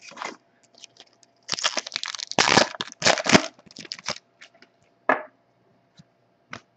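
A trading-card pack wrapper being torn open and crumpled, a dense run of crackling from about a second and a half in, followed by a few light clicks of cards being handled.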